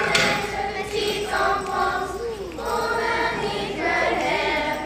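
A children's choir singing, in phrases of held notes with short breaks between them.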